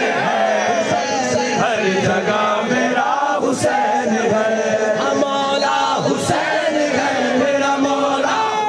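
Men chanting in unison, led by two singers on microphones with the crowd joining in: a loud, continuous Islamic devotional chant.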